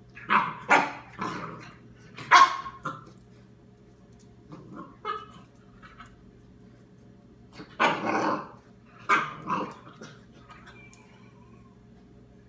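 Seven-week-old puppy barking at a Nylabone chew bone on the floor: short high barks in clusters, three quick ones at the start and a loud one about two seconds in, softer barks near the middle, and another run from about eight to ten seconds.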